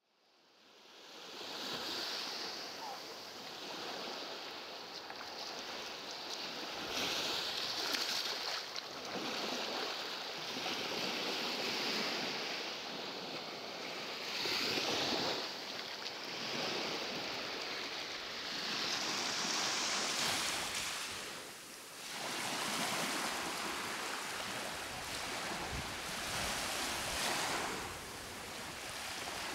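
Rushing noise that fades in at the start, then swells and ebbs every three to four seconds.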